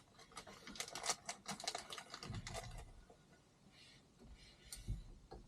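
Quick, faint clicks and taps of small metal screws and fittings being handled and sorted, dense for about three seconds, then a pause and a few more clicks near the end.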